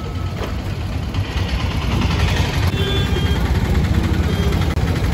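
Road traffic at a busy junction: vehicle engines running with a steady low rumble that grows a little louder about two seconds in, and a short high tone like a distant horn around three seconds in.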